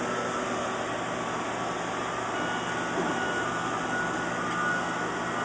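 A steady machine hum with a faint high whine over an even background rush, unchanging throughout.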